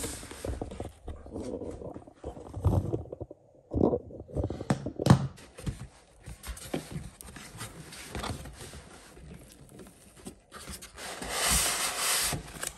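A cardboard box being handled and opened by hand: flaps and lid scraping and rustling, with scattered knocks and taps. A longer, louder sliding scrape of cardboard comes near the end.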